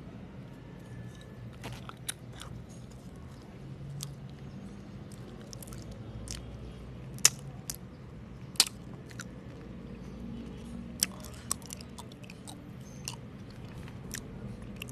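Close-miked chewing of mochi ice cream, with sharp wet mouth clicks scattered through it; the two loudest come a little past the middle.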